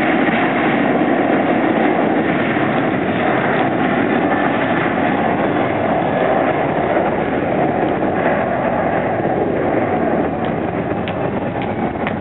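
Jet engines of a Solaseed Air Boeing 737-800 at takeoff thrust during the takeoff run: a loud, steady rushing jet noise that eases slightly near the end as the airliner lifts off and draws away.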